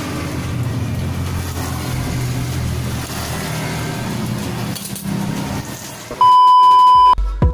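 Steady low mechanical rumble, then about six seconds in a loud, pure electronic beep that holds for about a second.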